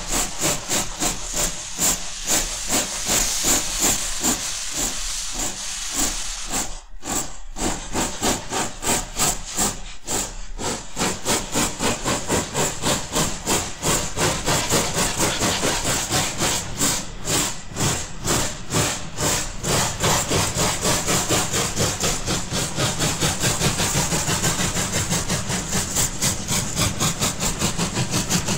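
Pacific-type (4-6-2) steam locomotive starting a heavy express up a gradient: its exhaust beats, over hissing steam, come faster and faster.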